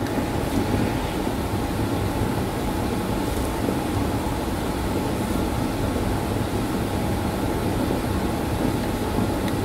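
A steady, even rumble and hum with a faint held tone and no separate events: mechanical background noise.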